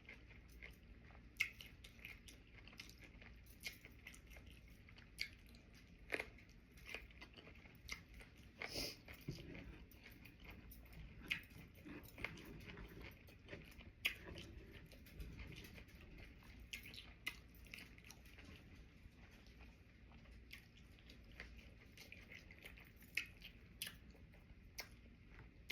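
Faint chewing and mouth sounds of a person eating sushi, with small sharp clicks at irregular intervals.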